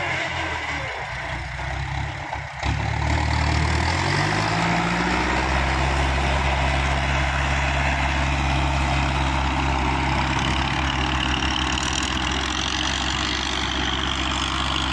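Large farm tractor's diesel engine working under load, pulling a disc harrow. Its pitch drops for a few seconds near the start, rises again about four seconds in, then holds steady.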